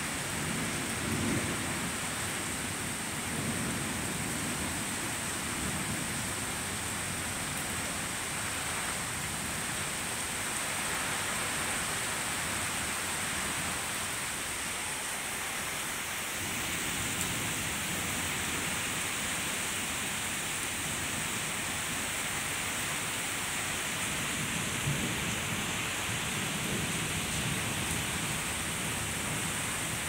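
Steady rain pouring down, with low rolls of thunder rumbling through it several times.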